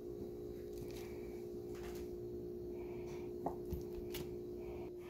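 Knife blade cutting through soft fathead dough on parchment paper, a few faint taps as the blade meets the board beneath, over a steady background hum.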